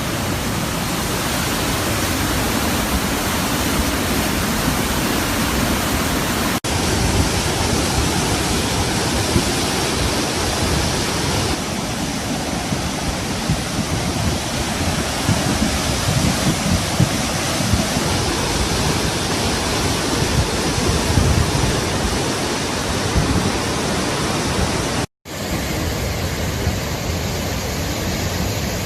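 Loud, steady rush of fast-flowing floodwater, a dense roar with no pauses. It breaks off briefly twice where the recording cuts: a tiny dip about a quarter of the way in and a short dropout near the end.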